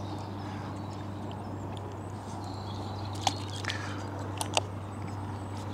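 A few light clicks and ticks of fishing tackle being handled at the rod and reel, over a steady low outdoor rumble.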